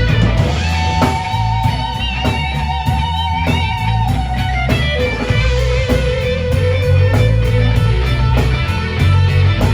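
Live rock band with electric guitar in the lead, over bass and drums. The guitar sustains two long notes with vibrato, a higher one and then, about halfway through, a lower one.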